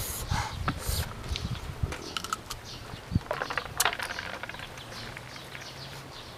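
Close-up chewing of a crisp bite of unripe green mango: quick crunches with wet mouth clicks and smacks.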